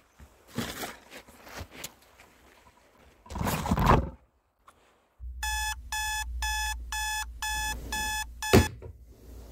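Flip-clock radio alarm beeping in a fast even pulse, about eight beeps in three seconds over a low hum, cut off by a sharp thump near the end. Before it, a loud rustling burst about three seconds in.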